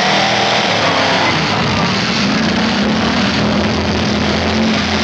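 Several demolition derby cars' engines revving hard together in a continuous loud din, the revs rising and falling as they push against each other and spin their wheels in the mud.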